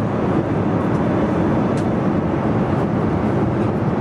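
Steady cabin noise inside a jet airliner in flight: the even rush of engines and airflow, with no changes.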